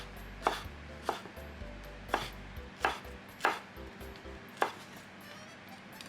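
Kitchen knife chopping vegetables on a cutting board: about seven separate, unhurried strokes, each a sharp knock on the board.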